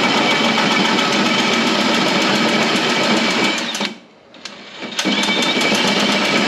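Power drill cutting a hole through metal, the bit biting steadily under light pressure; it stops for about a second a little past the middle, then starts cutting again.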